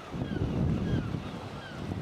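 A low rushing rumble of wind and breaking sea, loud on the microphone, that surges up at the start, with seabirds giving short falling calls again and again behind it.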